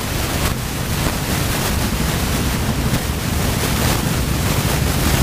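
Wind buffeting the microphone: a loud, steady rush of noise with gusts.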